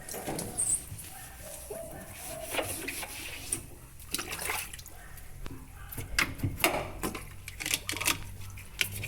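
Water sloshing and splashing in irregular strokes as washing-machine parts are scrubbed and rinsed by hand, with a few small knocks.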